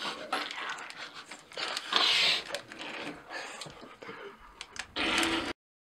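Chocolate bar wrapper crinkling and rustling as a bar is crammed into a mouth, with breathy, stifled laughter. The sound cuts off abruptly to dead silence about five and a half seconds in.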